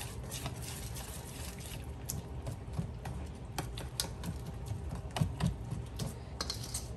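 A whisk working thick, wet batter of peanut butter and mashed banana in a mixing bowl: irregular clicks and taps of the utensil against the bowl as she stirs, a few a second.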